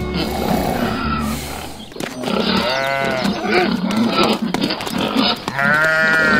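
Goat bleat sound effects: two drawn-out bleats about three seconds apart, each rising and then falling in pitch, with rougher animal noises between them. Low steady music bass fades out about two seconds in.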